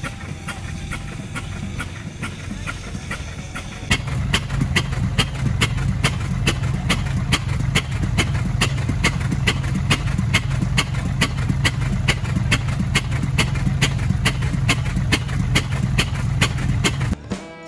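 Engine of a 1907 Waterous gasoline fire pumper running under load while pumping, firing in an even beat of about three sharp exhaust pops a second over the rush of its hose streams. It gets louder from about four seconds in.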